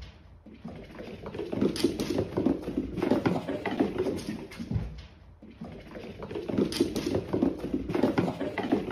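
Cats' paws pattering and thudding on a wooden floor as two cats chase and scuffle, in two flurries with a short lull about five seconds in.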